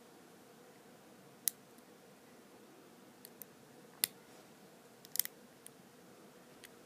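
Light metallic clicks and taps of a lock pick and tension tool working the pin tumblers inside a Master Lock No.3 padlock: a few scattered clicks, with a quick double click about five seconds in.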